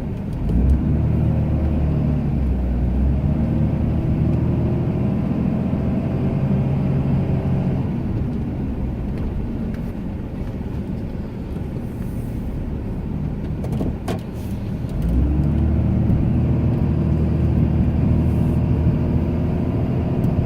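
Ram 2500 pickup's engine working under load while plowing snow, revving up about half a second in, easing off through the middle, and revving up again about fifteen seconds in. A single sharp knock just before the second rev.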